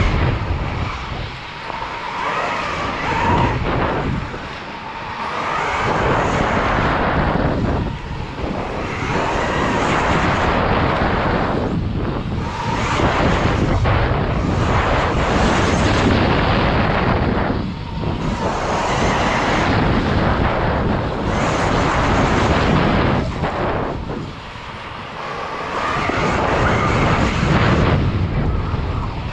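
KTM Freeride electric dirt bike being ridden hard around a dirt track: a continuous rumble of tyres and running gear over the dirt with wind buffeting on the bike-mounted microphone, swelling and dropping with speed and dipping briefly several times, and a faint steady whine at the start and near the end.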